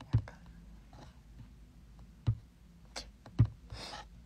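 About four separate light clicking taps a second or so apart, made while answers are picked on an online personality test.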